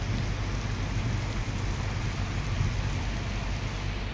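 Steady rainfall: an even hiss with a low rumble underneath.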